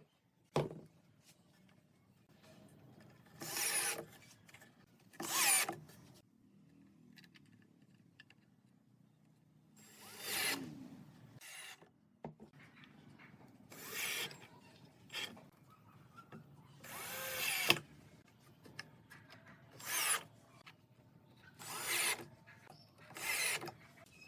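A handheld power tool working wood, run in about eight short bursts of under a second each, its motor spinning up and down with every burst.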